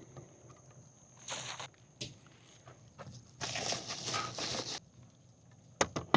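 Camping gear being handled and packed into a car: a few rustles, a longer stretch of rustling midway, and a few sharp knocks and clicks near the end.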